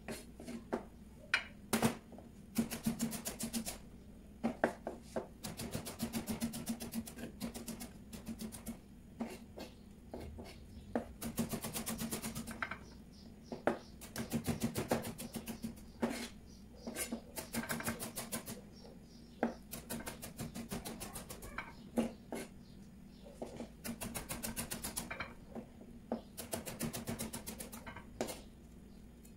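Chef's knife chopping and dicing tomato on a plastic cutting board: quick runs of rapid knife strokes against the board, with single cuts and pauses between the runs.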